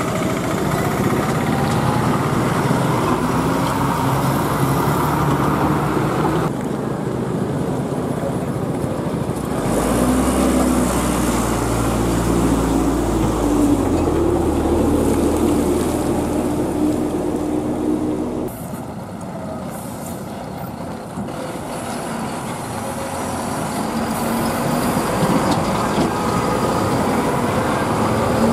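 Heavy diesel trucks driving slowly past, engines running under load, with the sound changing abruptly a few times. In the middle stretch a tipper passes close with a strong, deep engine rumble.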